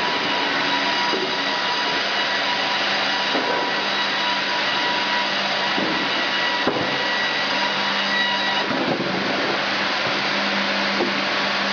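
Band resaw and sawmill machinery running as boards are fed through the band blades: a loud, steady noise with a high whine that drops out about nine seconds in.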